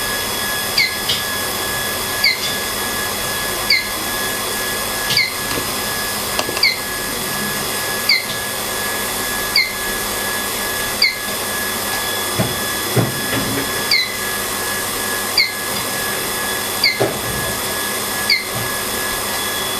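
Copper-tube welding machine running: a steady hiss with faint high steady tones, and a short falling chirp with a click repeating about every one and a half seconds, a regular machine cycle. A few low knocks come in the second half.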